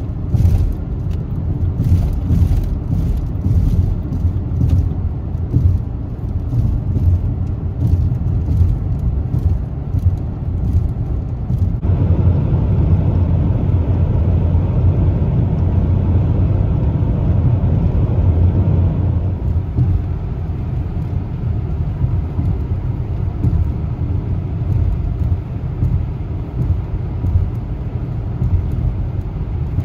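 Road and engine noise inside a Dodge car's cabin while it is driven along a highway: a steady low rumble. About twelve seconds in it gets louder and rougher for several seconds, then settles back.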